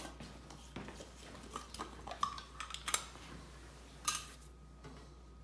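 A small glass jar and a bottle of rubbing alcohol being handled: scattered light clinks and taps, with a sharper clink about four seconds in that rings briefly.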